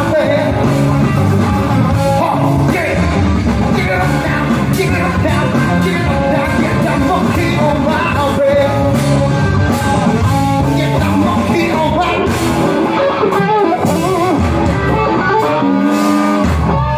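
Rock band playing live, loud: electric guitars, bass and drums with a singer's vocals over them.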